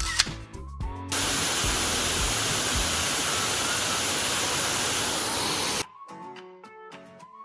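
A loud, steady rushing hiss, like spraying or running water, starts about a second in and cuts off suddenly near six seconds. Soft background music with plucked notes follows.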